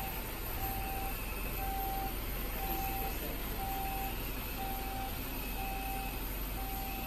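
Vehicle reversing alarm sounding short, even beeps about once a second over a steady engine rumble.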